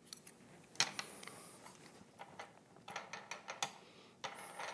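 Small plastic clicks and rattles of propellers being handled and fitted onto a selfie drone's motor hubs, a dozen or so scattered clicks, with a short rubbing scrape near the end.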